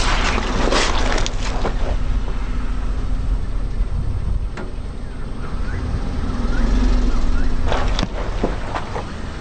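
Car tyre rolling over a whole pineapple and crushing it: a burst of crunching and crackling in the first two seconds, over the low rumble of the car. About eight seconds in, a second crackling crunch as the tyre rolls over the flattened, juicy remains.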